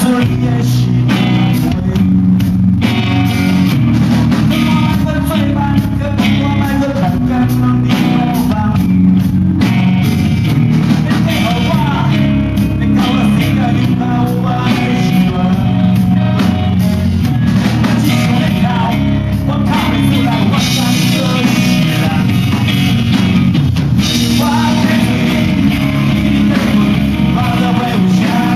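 Rock band playing live and loud: distorted electric guitar over a driving drum kit, with a voice singing in parts.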